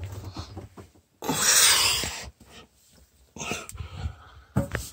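A man's heavy breathing: a long, loud exhale about a second in, then a shorter breath and a few light knocks.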